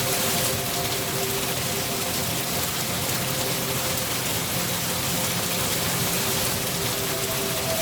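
Steady rain falling. Its even hiss is joined by a faint held chord of steady tones that drops away in the middle and returns near the end.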